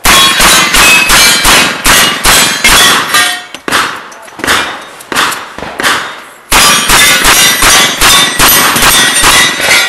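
Open-class competition revolver firing two rapid strings of shots, several a second, with a sparser few shots between them. Each hit sets steel targets clanging.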